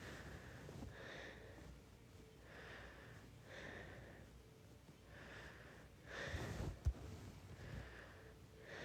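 A person breathing softly close to the microphone, a breath about every second. About six seconds in comes a louder, fuller noise, ending in a sharp click.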